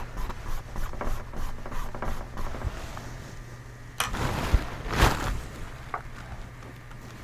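Soft scratchy rubbing and light taps of a paintbrush working oil paint on canvas, with a sharp click about four seconds in and a louder rustle about a second later, over a low steady hum.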